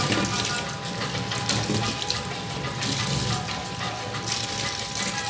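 Tap water running into a stainless steel sink, splashing over chili peppers as a hand rubs and rinses them.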